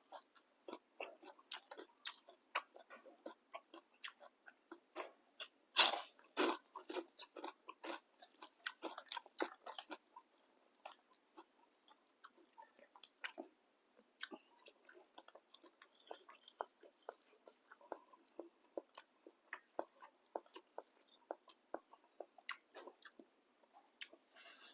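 Close-up eating of boat noodles: chewing and wet mouth clicks and smacks, a steady scatter of short sounds with a louder burst about six seconds in.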